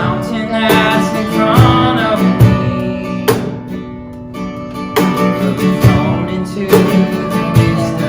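Live worship band music led by strummed acoustic guitar, with recurring full-band accents.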